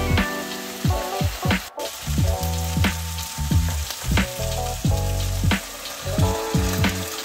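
Food sizzling as it fries in a pan, under background music with held notes and a pulsing bass. The music drops out for an instant about a second and a half in.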